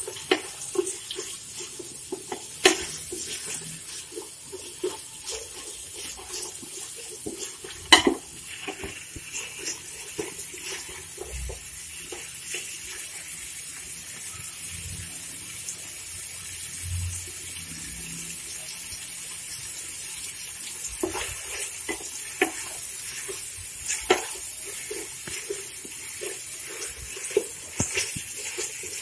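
Carrot strips and raisins sizzling in hot oil and ghee in an aluminium pot, with a steady hiss, while a wooden spatula stirs them, scraping and knocking against the pot in short clicks. The loudest knock comes about eight seconds in.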